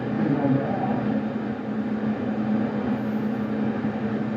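Steady static hiss from a CB radio receiver on long-distance skip, with faint garbled signals wavering in it. No answer to the call comes through.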